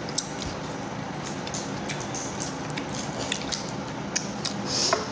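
Close-up eating sounds: a fried snack broken apart by hand and chewed, with many small scattered crackles and mouth clicks and a louder one near the end.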